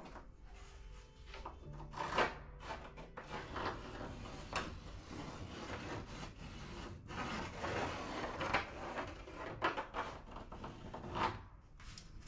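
Wood rubbing and scraping as a pencil marks and a hand works the plywood bulkhead against the wooden kayak hull, in irregular rough strokes with a few sharper knocks.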